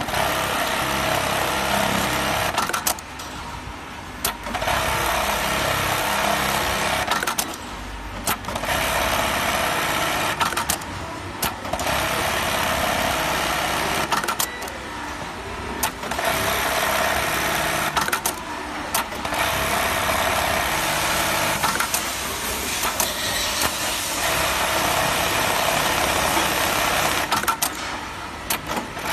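Computerised bartack sewing machine running through stitch cycles: stretches of fast, steady stitching a few seconds long, about six times, with brief pauses between cycles marked by sharp clicks.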